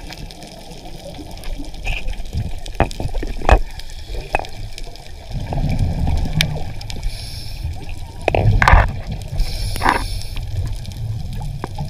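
Underwater sound picked up by a diver's camera: gurgling, bubbling water with a low rumble that swells about halfway through, brief bursts of bubbles, and a few sharp clicks.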